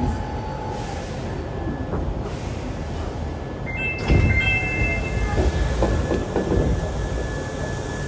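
Running sound inside a Hankyu 7300-series electric train car with a Toyo IGBT inverter: a steady low rumble. Near the middle, a couple of high steady whine tones come in and the rumble grows louder and rougher.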